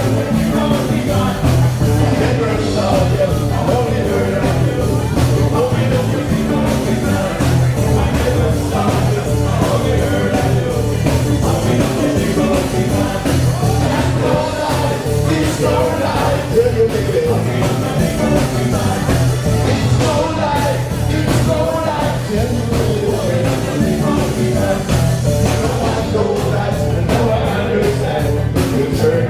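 Live ska band playing a steady upbeat rhythm, with a singer's voice over the band.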